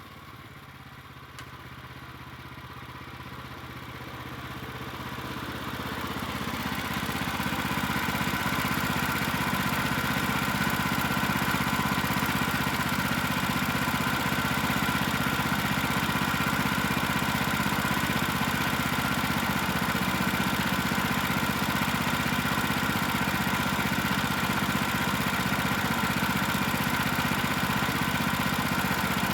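Portable band sawmill's gas engine running with its blade turning, growing gradually louder over the first several seconds and then holding steady.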